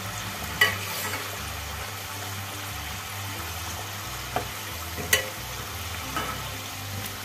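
Kachoris deep-frying in hot oil in a kadhai, a steady sizzle. A few sharp clinks of a perforated metal skimmer against the pan break through it as the kachoris are turned.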